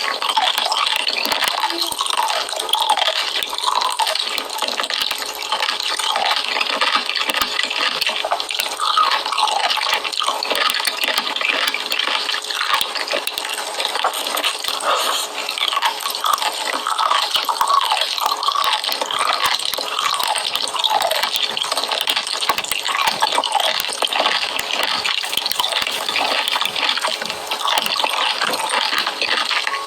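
Continuous wet, squelching chewing and slurping of a mukbang eater, steady for the whole stretch with no pauses.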